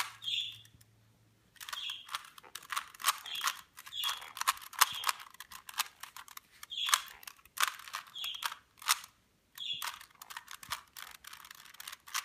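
Rubik's cube being turned fast during a timed solve: rapid runs of plastic clicking and clacking as the layers are twisted, broken by brief pauses about a second in and again near three-quarters of the way through.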